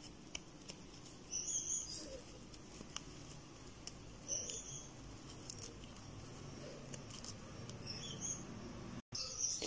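Faint rustling of a crochet hook working yarn, with light clicks and three brief soft scratchy swishes about three seconds apart as stitches are pulled through.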